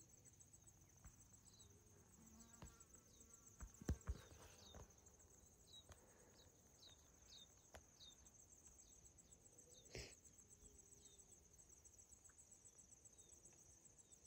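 Faint outdoor ambience of insects chirring, a high, rapid, steady pulsing, with short high chirps repeating through it. Two soft knocks about four seconds in are the loudest sounds.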